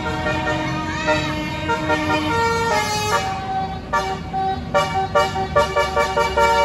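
A bus's basuri musical horn playing a melody: loud held notes stepping from pitch to pitch, with a few swooping glides about a second in, then a quick run of short staccato notes near the end, over a low rumble.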